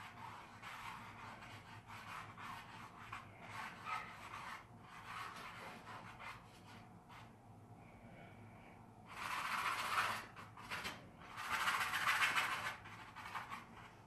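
Oil paint being brushed onto a stretched canvas: soft, scratchy brush strokes, with two longer, louder scrubbing passes in the last third.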